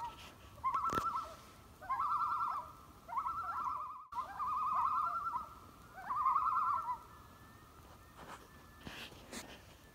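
A bird's call, a rapidly quavering, wavering phrase repeated several times, each under a second long, ending about seven seconds in.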